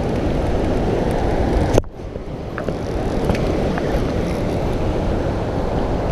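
Steady low rumble of wind on the microphone, broken by a sharp click about two seconds in, after which the rumble briefly drops.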